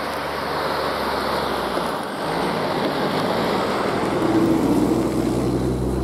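GAZ Sobol 4x4 van with automatic gearbox, all differentials locked and in low range, driving under load through deep untracked snow. The engine works hard over the rush of tyres churning snow, and it is loudest about four to five seconds in.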